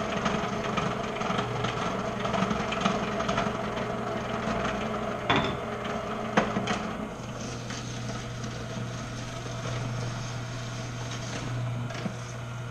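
Tribest Green Star Elite twin-gear juicer running with a quiet, steady low hum and grinding as produce is pressed through it. Two sharp knocks come a little past the middle.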